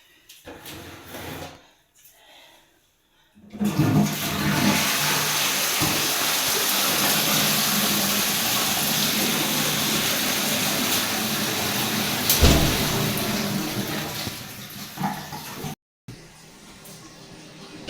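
Water rushing loudly and steadily for about ten seconds, starting about three and a half seconds in and fading before it cuts off.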